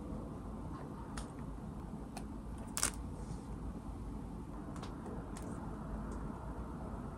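Low steady room noise with a few faint clicks and one sharper click about three seconds in, from a person handling her hair as she ties it up.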